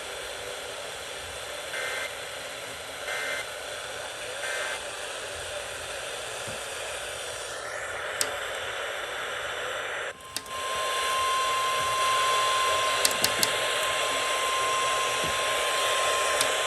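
A weather radio receiver hissing with static. A couple of seconds in come three short two-tone data bursts of a SAME alert header. About ten seconds in, the signal drops out briefly and a steady single-pitch NOAA Weather Radio warning alarm tone starts and holds, with a few clicks over it.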